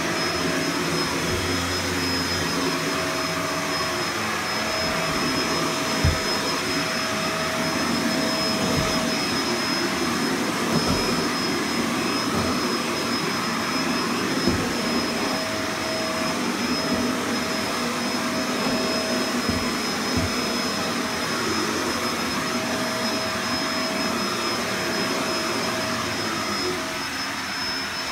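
Vacuum cleaner running steadily, with a constant high whine over the motor and air noise. A few short knocks are heard along the way.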